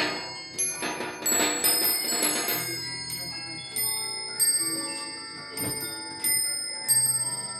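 Antique cylinder music box with bells playing a tune: its pinned brass cylinder plucks the steel comb note after note, with bells chiming along.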